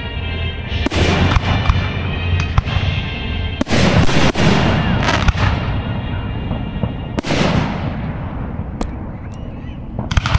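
Aerial fireworks shells bursting in an irregular run of about nine booms, bunched most closely about four seconds in, each with a fading tail.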